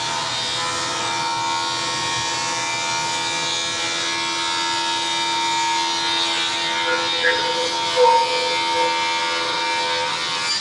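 Straight line rip saw ripping a board as its feed carries it through the blade: a steady mechanical whine made of many tones over a hiss. A few small knocks come near the end.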